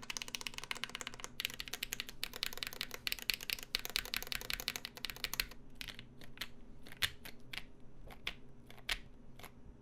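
Fast typing on a GMMK Pro mechanical keyboard with lubed SP-Star switches, an aluminum plate and SA-profile keycaps. After about five and a half seconds it slows to single, spaced keystrokes. A faint fan hum runs underneath.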